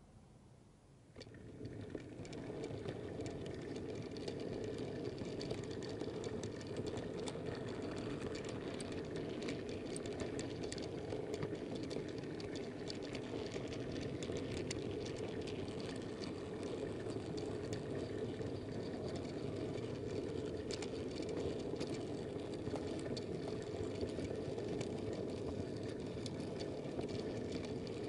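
Model railway train starting off about a second in, then running steadily: a constant rolling rumble from wheels and mechanism on the track, peppered with small clicks and rattles, heard from on board the train.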